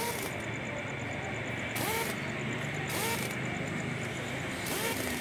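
Impact wrench tightening the crankcase screws on a motorcycle engine: four short bursts of the tool running, each with a quick rise and fall in pitch, over a steady shop hum.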